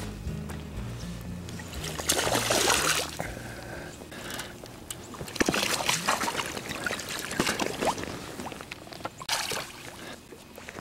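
Water splashing and dripping in several bursts as a hooked fish is scooped into a landing net and lifted, the loudest about two seconds in and again around six seconds.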